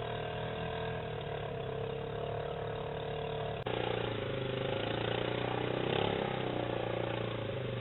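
Quad ATV engine running steadily at a low, even speed. The sound jumps abruptly to a slightly louder, shifted engine note about three and a half seconds in.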